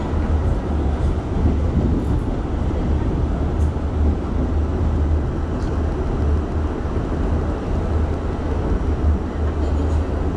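New York City subway train running along the track, heard from inside the car: a steady low rumble of wheels on rails with a few faint ticks.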